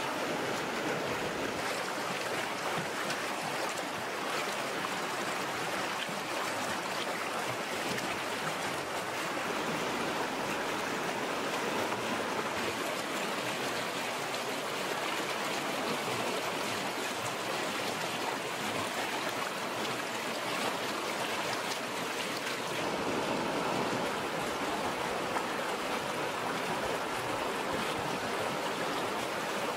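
Fast-flowing shallow stream rushing over rocks: a steady, unbroken rush of water.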